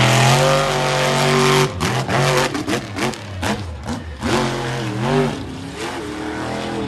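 Monster truck engine revving hard. It climbs and holds at high revs, then through the middle gives a quick string of sharp cracks and throttle cut-outs, and near the end the revs swing up and down before steadying.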